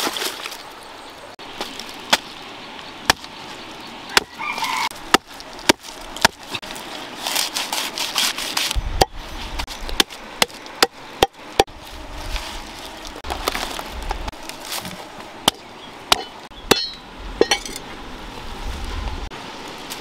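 Cleaver chopping lemongrass stalks on a wooden chopping block: sharp, uneven knocks, with a quick run of strokes about halfway through. Water splashes briefly at the start as the stalks are rinsed in a pot.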